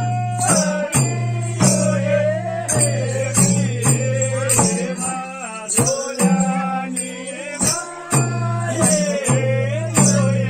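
Gurung Sorathi folk music: madal hand drums beaten in a steady rhythm under a wavering sung melody.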